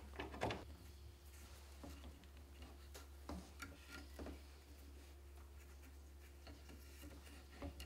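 Faint handling sounds of hands wrapping and knotting cotton warp thread on a wooden loom rod: scattered small ticks and brief rustles, over a steady low hum.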